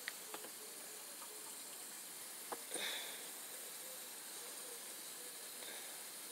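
Steady faint hiss of water running out of a black drip-irrigation hose into the soil, with a few light clicks and rustles as the hose is handled.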